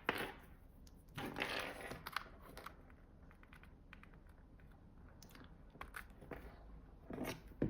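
Soft rustling and a few light clicks of cables and devices being handled: a burst near the start, a longer rustle about a second in, then faint scattered clicks.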